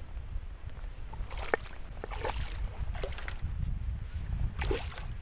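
Four short water splashes at the surface beside the boat, where a landing net and a lure are in the water, over a steady low rumble of wind on the microphone.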